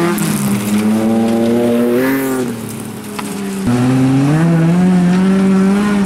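Bilcross race cars' engines accelerating hard, the pitch climbing. About two seconds in they ease off and fall quieter, then after an abrupt cut the engines climb again.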